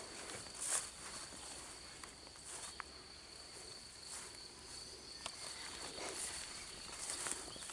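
A cricket singing a steady high-pitched trill, with occasional soft footsteps and rustling of plants.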